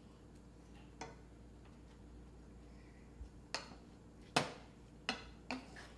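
A wooden spatula knocking against a frying pan while ground pork is stirred: a faint tap about a second in, then several sharp knocks from about three and a half seconds in, the loudest a little past four seconds.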